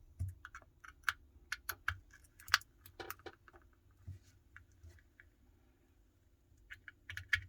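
Irregular small clicks and taps of a pry tool working against the opened Samsung Galaxy S22's earpiece speaker and frame. The part will not come free because a retaining screw is still in place.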